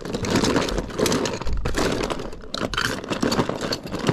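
Hard plastic toy figures clattering and knocking together as hands rummage through a plastic bin of them, a busy rattle of many small clicks that stops abruptly at the end.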